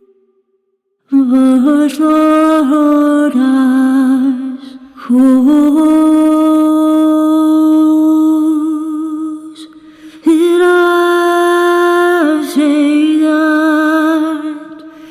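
Sampled wordless vocal from the Zero-G Ethera Gold Atlantis Kontakt library: three long held sung phrases with light vibrato, each swelling in at a new note, the last one fading out.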